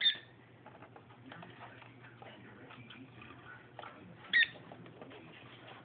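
A small pet parrot chirping twice, short high calls at the start and about four and a half seconds in, with faint clicking and scratching of the bird climbing on a cardboard box between them.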